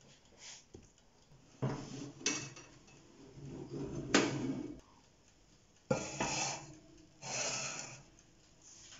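Countertop electric oven's glass door opened and its wire rack and metal baking pan handled inside: bouts of metal scraping and clattering, with sharp knocks about four and six seconds in.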